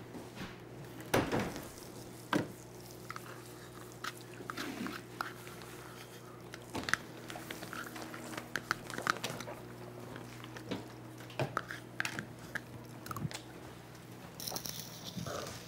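A person chewing and biting into a snack, with scattered short clicks and light knocks over a steady low hum.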